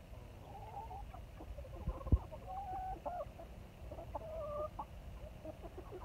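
A flock of hens clucking, with several short drawn-out calls in turn. A sharp low thump about two seconds in.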